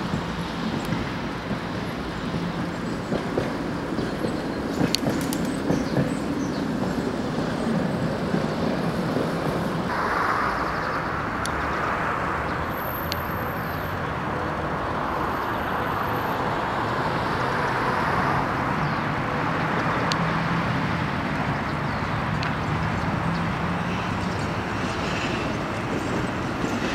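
Steady street traffic noise, growing a little louder for a stretch from about ten seconds in.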